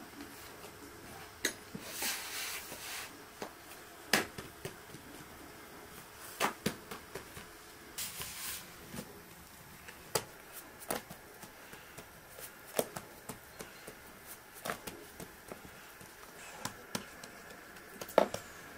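Scattered light clicks and taps of a spoon and fork against a metal pan and a floured wooden board, with hands working dough and two short rustling scrapes, about two and eight seconds in. The sharpest taps come about four seconds in and near the end.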